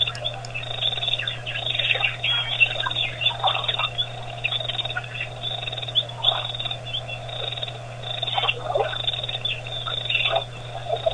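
A chorus of birds chirping and calling, many short overlapping calls throughout, over a steady low hum.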